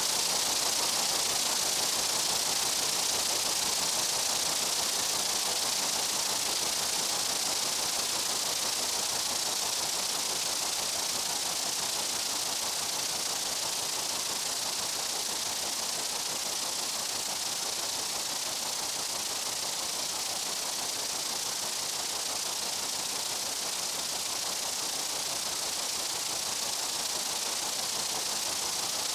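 Steady meadow insect buzzing: a dense, even, hiss-like high drone with no separate calls, unchanging throughout.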